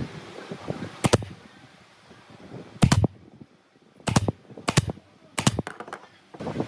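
Pneumatic brad nailer firing brads into hardwood, about six sharp shots spaced unevenly, a second or so apart.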